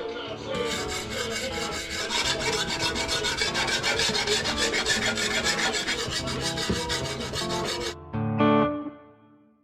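Rapid, even rasping strokes of metal worked on the knife blade, several a second, over background music. The strokes stop about eight seconds in, and a final musical chord rings out and fades.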